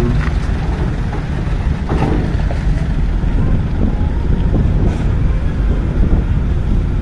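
Heavy trucks' diesel engines running as the trucks drive off a roll-on/roll-off ferry's ramp. Wind buffets the microphone, and there are a few short knocks.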